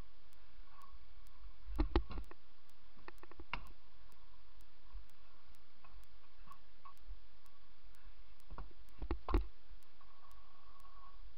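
Stunt scooter rolling on concrete, a steady low rumble of the wheels, with sharp clacks of the deck and wheels hitting the surface twice about two seconds in and again in a cluster about nine seconds in. A faint regular ticking, about three a second, runs underneath.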